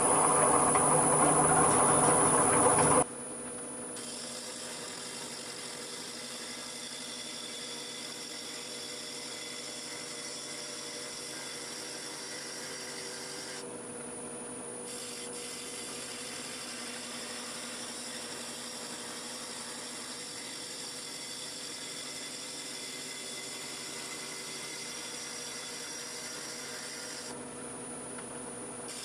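Electric power tool running steadily with a high whine. It is loud and rough for the first three seconds, then drops suddenly to a quieter, even running.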